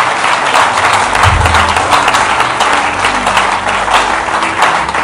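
A congregation applauding: a dense, steady clatter of many hands clapping.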